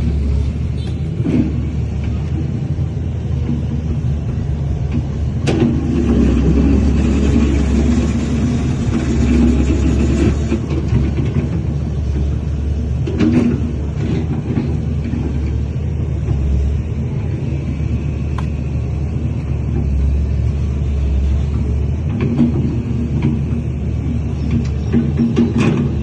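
Heavy diesel earthmoving machinery running steadily, a low engine rumble with a few sharp knocks.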